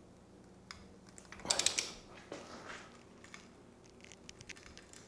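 Click-type torque wrench ratcheting on the crankshaft damper pulley bolt as it is tightened: a short cluster of sharp metal clicks about a second and a half in, a couple of single knocks, then faint light ratchet ticks.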